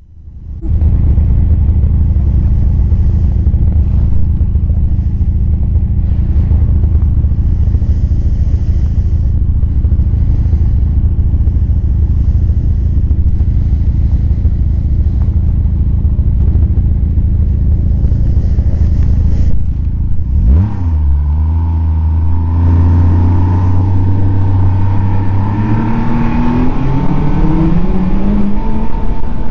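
Snowmobile engine running at a steady pitch, then easing off about two-thirds of the way through and rising steadily in pitch as it speeds up again.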